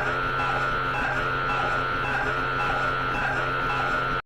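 Steady electrical buzzing of a fluorescent light, a low hum with a higher whine that pulses faintly about once a second, cutting off abruptly at the very end.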